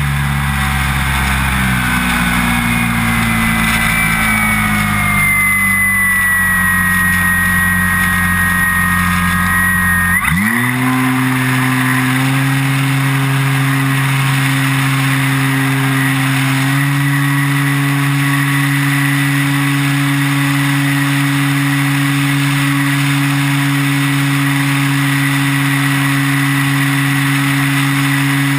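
Electric motor and propeller of an E-flite T-34 Mentor RC plane in flight, heard from an onboard camera with wind rushing past. For the first ten seconds the pitch drifts gently down; then the motor spins up quickly to a steady, higher hum, rising a little again a few seconds later.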